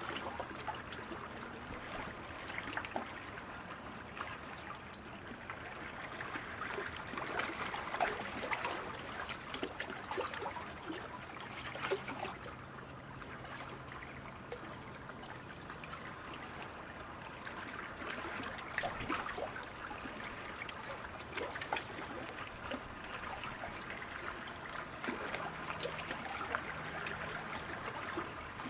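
Water lapping and trickling around the sprint canoes and start pontoons, a steady wash with many small splashes and ticks. A faint low hum comes in briefly twice.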